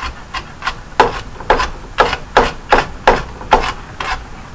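Knife chopping celery on a wooden cutting board: a steady run of sharp knocks of the blade on the wood, about three a second.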